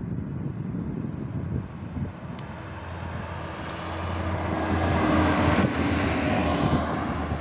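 SA139 diesel railcar passing at track side: its engine hum and wheel noise build up to a peak about five seconds in, then ease slightly.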